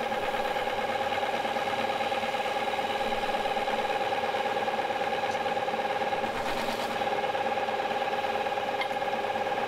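Bicycle disc brake pads grinding against a rotor spun by a large metal lathe, a steady squealing grind made of several steady high tones over a rough hiss.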